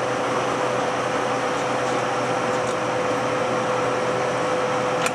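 1972 Monarch Series 62 toolroom engine lathe running under power with the carriage on power feed: a steady geared mechanical whir with a constant hum. A single short click comes near the end.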